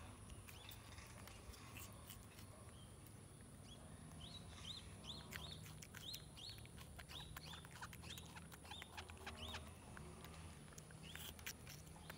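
Faint series of short, high chirping calls from a small animal, about two a second for several seconds, with a few more near the end.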